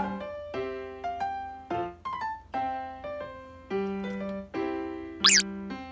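Light background music of piano or electric-piano notes, each struck and fading, with a short high warbling sound about five seconds in.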